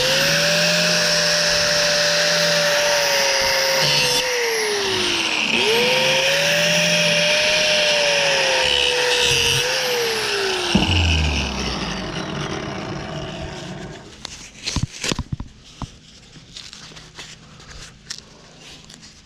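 Electric power tool with a blade cutting through metal. Its motor whine sags in pitch twice as it bogs under load, recovers, then cuts off about eleven seconds in and winds down, followed by scattered clatter of parts being handled.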